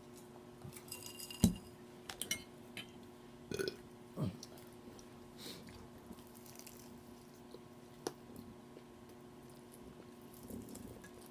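A woman eating, with a burp among scattered soft chewing and mouth sounds; a brief sharp knock about a second and a half in is the loudest sound.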